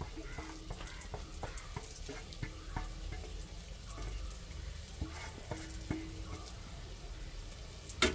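Fingers scraping thick spice paste off a steel plate into a clay pot: small scattered scrapes and clicks. Near the end the steel plate is set down with a sharp clack.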